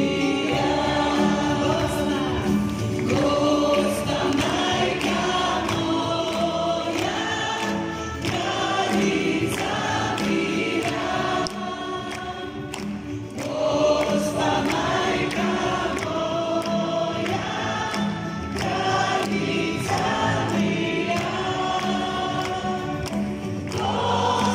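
A congregation singing a worship song together with accompanying music, and hands clapping along to the beat.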